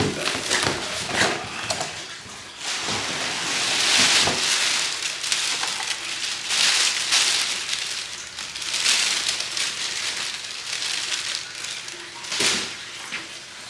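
Packaging rustling and crinkling as the pieces of a front lip splitter are unwrapped and handled, in uneven swells.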